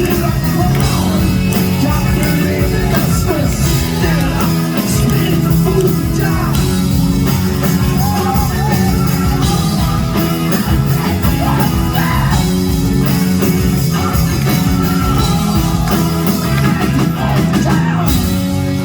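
Live rock band playing loud, with drums, guitars and a singer shouting the vocals.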